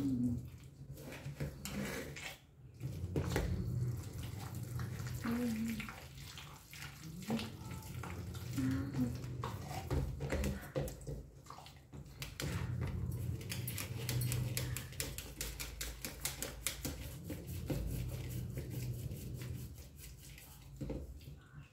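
Wooden pestle pounding and churning soaked rice in a steel pot: wet squelching and sloshing with dull knocks, the rice being ground by hand into dosa batter.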